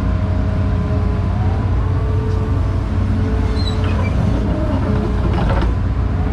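Hydraulic excavator's diesel engine running steadily, heard from inside the cab, with a hydraulic whine that drifts in pitch as the arm and bucket are worked. A brief clatter near the end.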